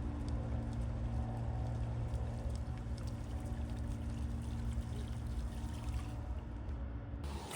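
A steady low motor hum over a rushing noise, cutting off abruptly near the end.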